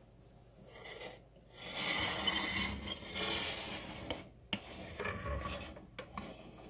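Stainless steel saucepan of water scraping and rubbing across the stovetop as it is shifted onto the burner, with a few sharp knocks near the end as it is set in place.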